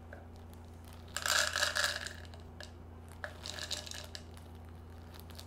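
Hop pellets poured from a crinkling bag into a small glass: two rustling, rattling spells, a louder one about a second in and a softer one around three seconds in, over a steady low hum.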